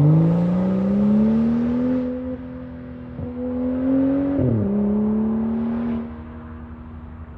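Straight-piped BMW coupe's engine and exhaust accelerating away, the note rising for about two seconds and then holding high. About four and a half seconds in it steps down in pitch, then fades as the car drives off around a bend.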